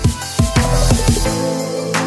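Electronic background music with a drum beat, a heavy bass and sustained synth chords. The bass and drums drop out about one and a half seconds in, leaving the chords.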